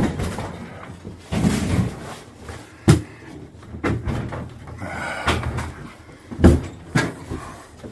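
Several sharp bangs and knocks, the loudest about three seconds in and twice more between six and a half and seven seconds, with rustling and shuffling between them.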